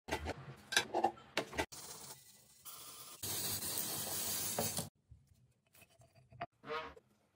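A quick run of lamp-restoration sounds. First small metal parts clink and click as they are taken apart, then a sanding rub. Next comes the loudest part, about a second and a half of aerosol spray-paint hiss. It ends with light clicks of parts being fitted back together.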